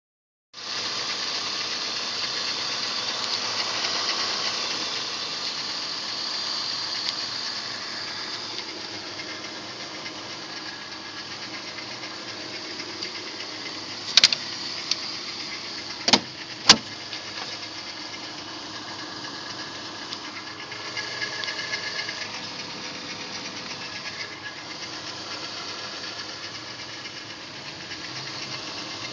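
BMW E46 320i's M54 2.2-litre straight-six engine running steadily with an odd rattle that the owner cannot place. A few sharp knocks come about halfway through.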